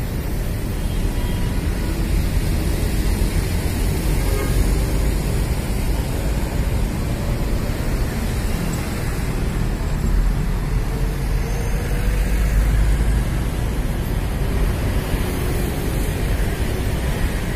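Steady city street traffic noise, a continuous rumble of passing road vehicles with no distinct events.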